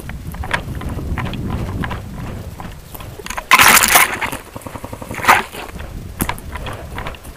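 Footsteps and gear of a player moving fast over a forest floor, picked up by a jostled helmet-mounted microphone: an uneven rumble of thuds and rustles. About three and a half seconds in comes a loud half-second rustling burst, with a shorter one a little after five seconds and a sharp click near the end.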